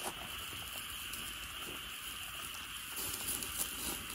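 Steady trilling of night insects in the background, with a few faint clicks late on.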